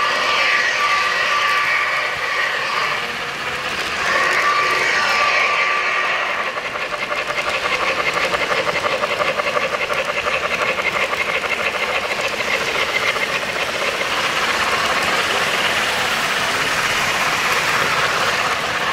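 O-scale model of the Norfolk & Western J-class 611 steam locomotive running on three-rail track. Its wheels and motor make a steady mechanical run, with a fast rhythmic clatter through the middle.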